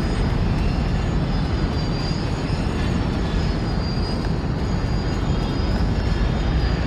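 Boeing 777-300ER's GE90 jet engines giving a steady rumbling roar as the airliner rolls out on the runway after landing, with a faint high whine above it.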